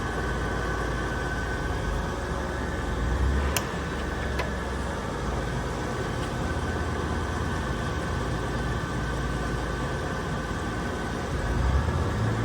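DoAll 13" x 48" engine lathe running steadily under power, its spindle and gearing giving a low rumble with a faint steady whine, with two short clicks a few seconds in.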